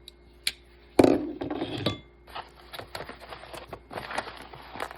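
A cardboard parcel being opened by hand: a couple of sharp clicks and knocks, then crinkling and rustling of packing paper and cardboard.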